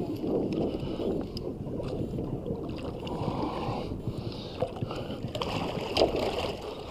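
Water sloshing and splashing at the side of a boat as a hooked redfish thrashes at the surface. The sharpest splash comes about six seconds in.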